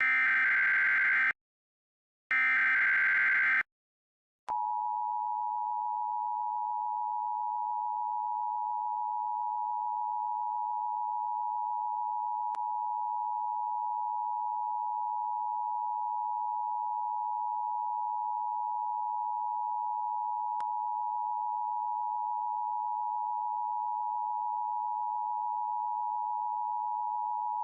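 Emergency Alert System signal: two short screeching digital header bursts about a second apart. Then the steady two-tone EAS attention tone begins about four and a half seconds in and holds unbroken.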